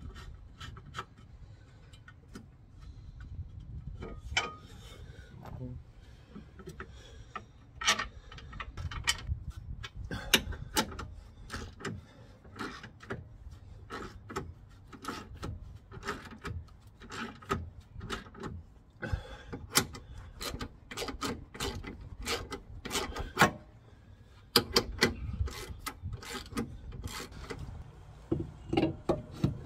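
Irregular metallic clicks and knocks of suspension parts and bolts being handled and fitted under a van, over a low steady rumble.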